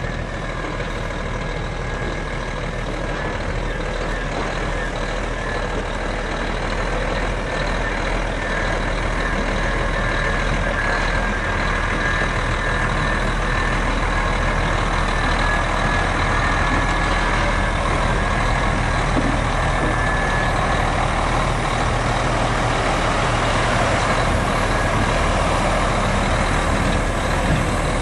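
The Mack EM6-250L 11.0-litre inline-six diesel of a 1989 Mack RD690S mixer truck running steadily as the truck drives slowly, growing a little louder as it goes on.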